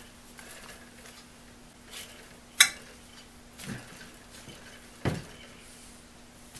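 Scattered knocks and clicks of a heavy metal-bodied Skil Model 731 rotary hammer being turned over and set down on a wooden workbench. The sharpest click is about two and a half seconds in and a duller thump comes about five seconds in, over a faint steady hum.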